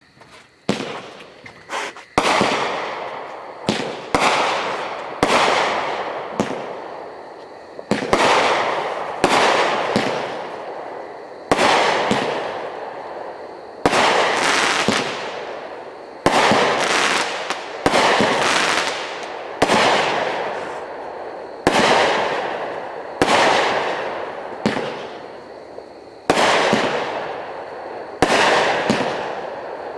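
A multi-shot consumer firework cake, Brain Sneeze, firing shot after shot, one every one to two seconds. Each shot is a sharp report followed by a noisy tail that fades over a second or two.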